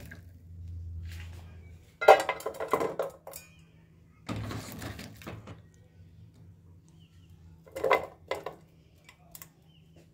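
Kitchen clatter of steel bowls and a metal pot being handled and knocked together, in three short bursts, the loudest about two seconds in.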